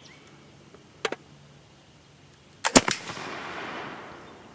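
A 20-gauge Tulle flintlock smoothbore shotgun firing. The lock snaps about a second in, and the main charge goes off about a second and a half later, with a loud report and a long fading echo. The delayed ignition is a flintlock hangfire, which the shooter puts down to humid air slowing the open-pan ignition.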